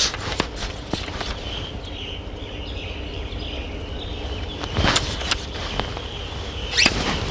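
Scattered rustles and knocks from a hooked fish flapping on the line and brushing against dry grass and reeds as it is lifted out of a weedy ditch. The louder ones come about five seconds in and again near the end, over a steady low rumble.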